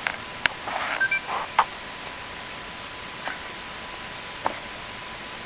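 A few sharp clicks with a short stretch of rustling from handling, over a faint steady high-pitched tone.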